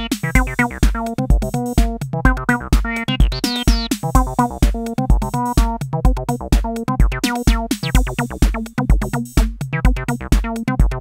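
Cyclone Analogic TT-303 Bass Bot, a TB-303 clone, playing a fast sequenced acid bass line, its filter sweeping open now and then. A drum machine kick beats steadily underneath, about two a second.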